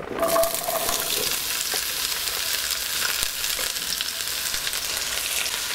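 Chopped vegetables dropping into hot oil in a cast-iron Dutch oven and sizzling, the frying starting suddenly as they go in and then holding steady.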